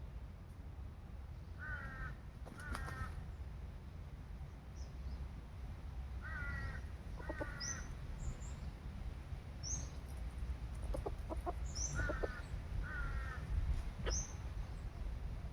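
Short calls in pairs, repeating every four to six seconds, from a bird that is either a chicken or a crow. Brief high chirps from small birds sound throughout.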